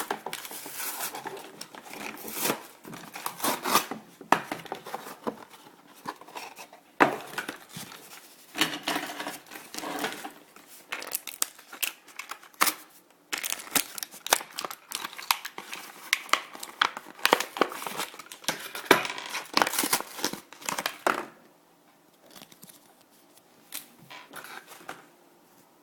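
Toy packaging being handled and opened: irregular crinkling and tearing with sharp crackles, dying down to faint handling sounds about 21 seconds in.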